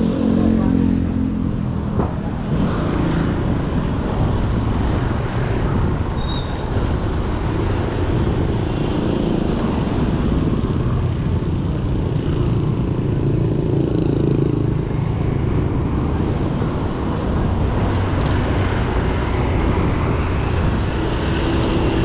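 Road traffic noise: tyres rolling on the road and motor vehicles running past, with an engine's hum coming up near the start and again around the middle.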